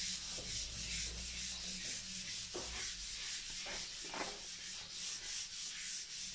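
Rhythmic scraping rasp, about five strokes a second, from hand work at a consumer unit's earth terminal bar while a wire is fitted.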